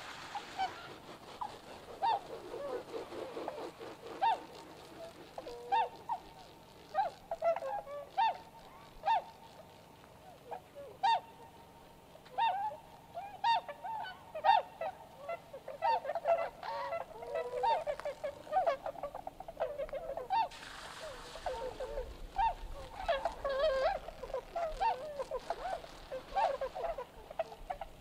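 A flock of swans calling on the water: many short, honking calls, scattered and often overlapping. A brief hiss of noise comes in a little past two-thirds of the way through.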